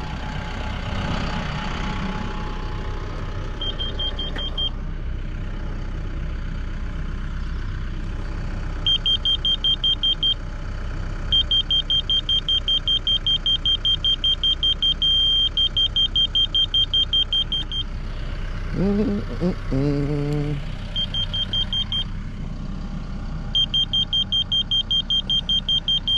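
Laser grade receiver on a grade rod beeping in runs of rapid, evenly spaced high beeps during a grade check, with a short steady tone partway through one run. A steady low rumble lies beneath.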